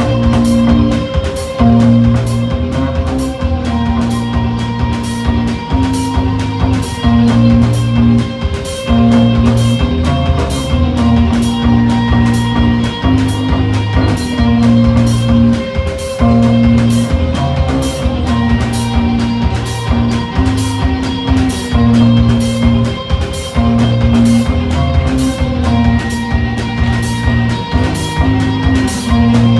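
Live rock band playing: electric guitars and a drum kit, with a repeating low riff under a steady, fast cymbal beat.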